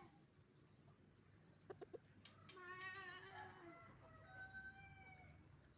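Chickens calling faintly: three quick clucks just under two seconds in, followed by a longer drawn-out call and a thinner one after it.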